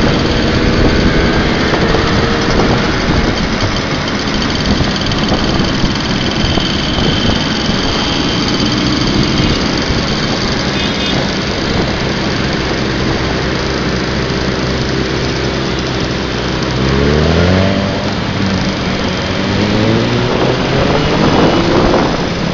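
Many Simson two-stroke moped engines running together in a riding column, a continuous loud engine din. Near the end one engine revs up twice in quick succession, its note rising each time.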